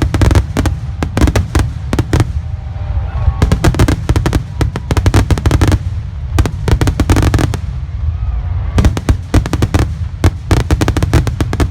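Fireworks going off in rapid volleys of sharp bangs and crackles, several clusters with short lulls between them, over a continuous heavy low rumble.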